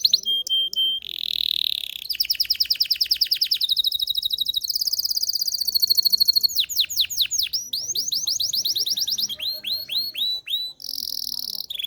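Domestic canary singing a continuous song built of rapid trills: each phrase is a run of quickly repeated notes, switching every second or so between fast rolls, a short held tone and runs of downward-sweeping chirps.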